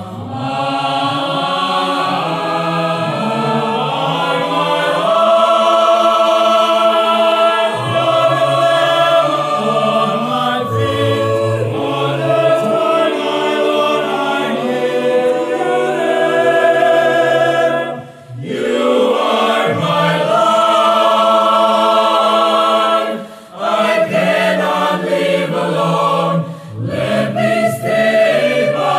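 Mixed choir of men and women singing a sacred song in English in several-part harmony. There are brief pauses between phrases about two-thirds of the way through.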